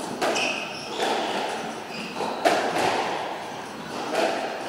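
Squash rally in a walled court: the ball is struck and hits the walls in a series of sharp smacks, the loudest about two and a half seconds in. Shoes squeak briefly on the court floor near the start.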